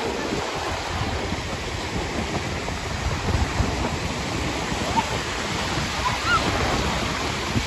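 Ocean waves breaking and washing on a beach, a steady rushing noise.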